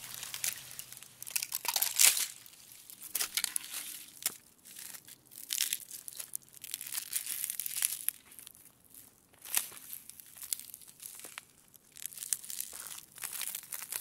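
Ice cracking slowly: irregular clusters of crackles and sharp snaps with short quieter gaps between, the loudest snap about two seconds in.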